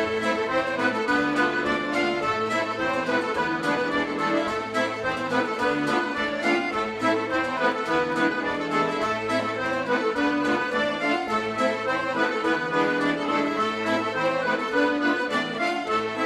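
Scottish traditional band music led by accordion, a lively tune played continuously.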